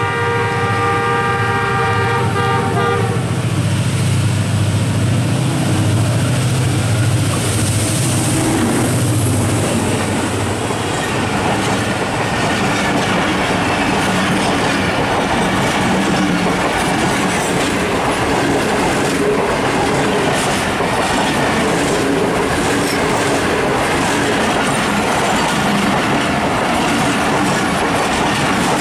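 Pakistan Railways diesel locomotive sounding its multi-tone horn for about three seconds as it comes in, its engine rumbling as it passes, then its passenger coaches rolling past close by with the wheels clattering steadily over the rail joints.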